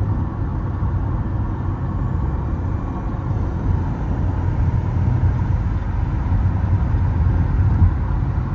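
Toyota Camry cruising at freeway speed, heard from inside the cabin: a steady low rumble of engine and tyre noise.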